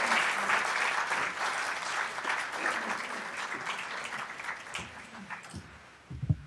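Audience applauding in a large hall. The clapping thins out and dies away about five seconds in.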